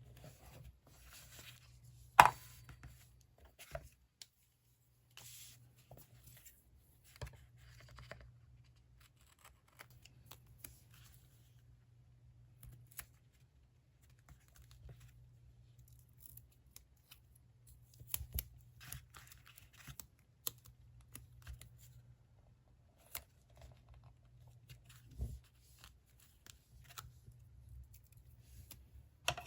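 Paper being handled and torn at a desk during diary decorating: soft rustles and scattered taps and clicks, with one sharp click about two seconds in, over a low steady hum.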